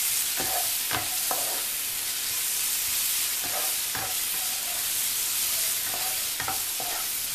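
Chopped onion-tomato masala sizzling in oil in a non-stick frying pan while it is stirred with a spatula, a steady frying hiss with a few uneven scrapes and taps of the spatula against the pan.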